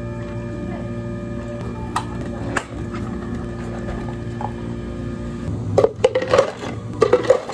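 Drink-making at a café counter: a steady hum of equipment with a couple of single clicks, then a run of irregular clattering knocks about six seconds in.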